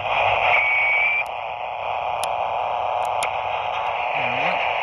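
TRC-224 three-channel crystal-controlled CB AM walkie-talkie hissing with receiver static from its speaker, squelch open. A faint thin whistle comes in about half a second in, and a few light ticks sound over the hiss.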